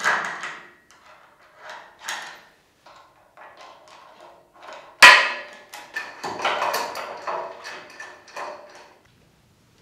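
Aluminium CNC-router parts and screw hardware clinking and knocking during assembly: small metal clicks from screws and T-nuts, a sharp metallic knock about five seconds in, then a run of rattling clanks.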